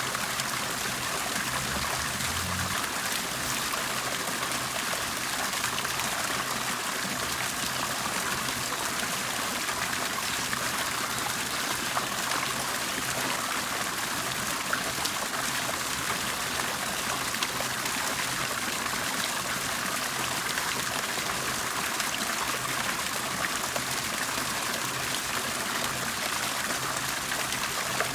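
Water bubbling and trickling steadily, an even splashing that never pauses, with a faint low hum beneath it.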